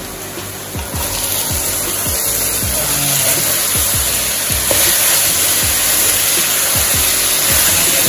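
Food frying in hot fat in a pot, sizzling steadily and growing louder about a second in.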